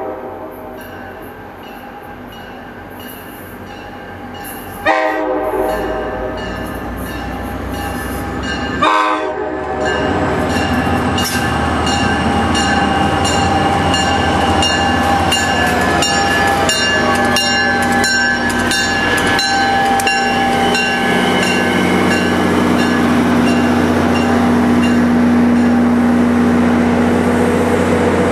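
An NJ Transit EMD GP40PH-2 diesel locomotive sounds its K5LA five-chime horn in blasts, one fading at the start and two more about 5 and 9 seconds in, as it approaches the station. It then rolls in along the platform, getting louder, with wheels clicking over rail joints and a steady engine drone as the locomotive and coaches pass close by.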